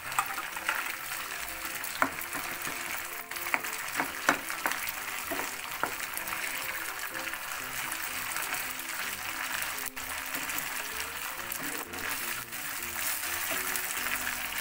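Canned corned beef frying in a pan with a steady sizzle while a spatula stirs and breaks it up, with several sharp clicks and scrapes of the spatula against the pan in the first six seconds.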